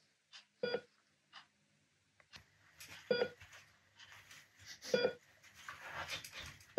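Heart-monitor beep sound effect: a short electronic beep repeating about every two seconds, four times. A stretch of soft hissy noise falls between the last two beeps.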